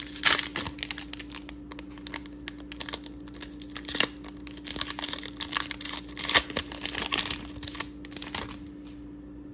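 Foil wrapper of a Pokémon trading-card booster pack crinkling and tearing as it is ripped open by hand, in irregular crackles that are loudest just after the start and stop about a second before the end.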